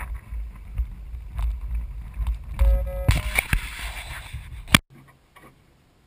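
Wind buffeting the cockpit-mounted microphone in a low rumble, with knocks and clicks of the glider being handled. A short electronic beep comes about two and a half seconds in. A sharp click near the five-second mark is followed by near quiet.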